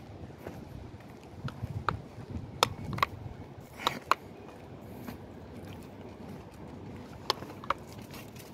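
Footsteps and rustling handling noise while a dog is walked on a leash, with sharp clicks that come in pairs three times.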